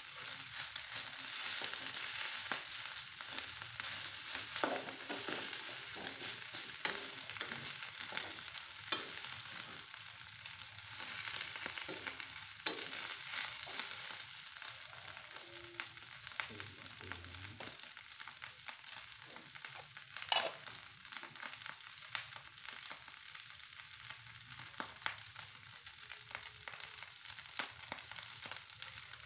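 Nasi goreng (fried rice) sizzling in a wok over a gas flame, stirred with a spatula, with frequent clacks and scrapes of the spatula against the pan.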